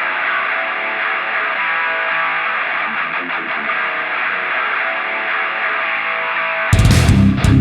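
Background rock music led by electric guitar. It sounds thin and narrow at first, then the full band comes in with heavy low end near the end.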